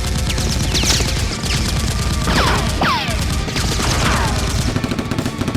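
Rapid automatic gunfire sound effects in a dense, continuous rattle, with several falling whistling whizzes layered over it.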